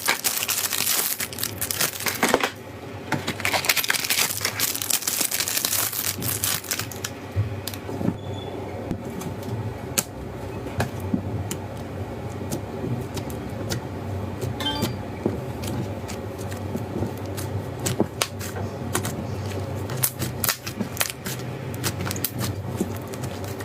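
Slime being squeezed and pressed by hand: dense crunching and crackling for the first several seconds, then scattered sharp clicks and pops over a low steady hum.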